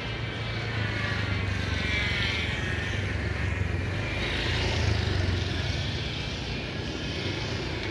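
Small motor scooters passing close by, their engines swelling about two seconds in and louder again near five seconds, over a steady low engine hum.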